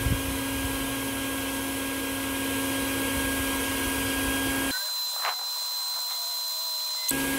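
A swarm of honeybees buzzing around the hive they are being moved out of: a steady hum with a clear low pitch. About two-thirds of the way in the buzz cuts out abruptly for a couple of seconds, leaving only a thin hiss with a faint high tone, then it returns.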